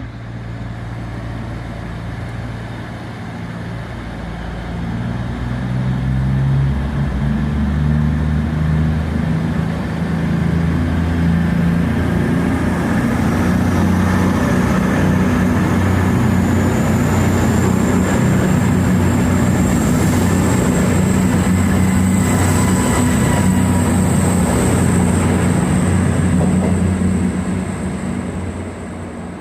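Class 221 Super Voyager diesel-electric multiple unit departing a station, its underfloor diesel engines revving up under power and then running hard. A high whine rises in pitch from about halfway as the train gathers speed, and the sound eases off near the end as it moves away.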